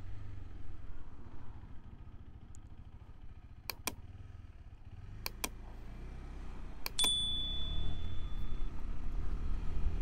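Riding noise of a KTM 390 Adventure's single-cylinder engine with wind, picked up by a helmet lavalier mic. The rumble eases off a couple of seconds in and builds again from about six seconds. Three pairs of sharp clicks come in the middle, with a brief high tone after the last pair.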